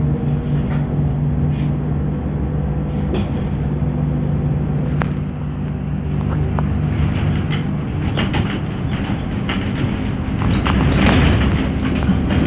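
Inside a ZiU-682G trolleybus on the move: a steady electrical hum from its traction drive, with a whine rising in pitch as it gathers speed. Scattered clicks and rattles sound throughout, and a louder rushing noise comes near the end.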